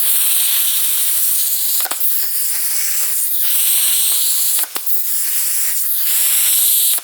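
Pneumatic blind-rivet gun pulling Cherry Max rivets, hissing air steadily, with a sharp click about two seconds in and another near five seconds as rivet stems snap off.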